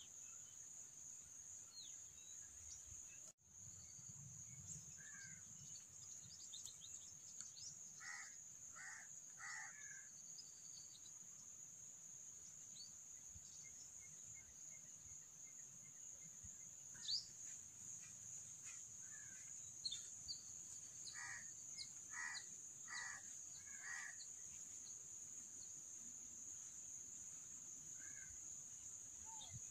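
Quiet farm ambience: a steady high insect drone, with a crow cawing in two runs of four calls, about eight seconds in and again past twenty seconds, and a few faint small-bird chirps.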